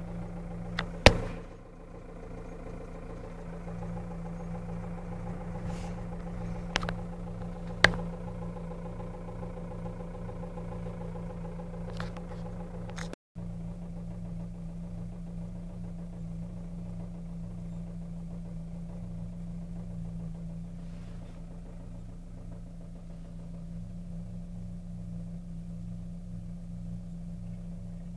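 Chevrolet Cruze 1.8 four-cylinder petrol engine idling warm with a steady hum and an engine knock, with a few sharp clicks about a second in and twice around seven to eight seconds in. The knock was traced to engine oil of the wrong viscosity.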